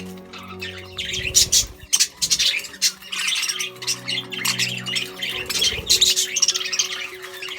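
A flock of budgerigars chattering and squawking, with rapid, overlapping chirps.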